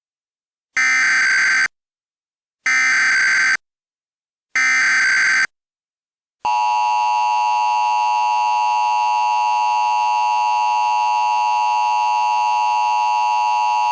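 Emergency Alert System header: three bursts of SAME data tones, about a second each, a harsh digital warble, followed about six seconds in by the steady two-tone EAS attention signal that marks the start of an alert.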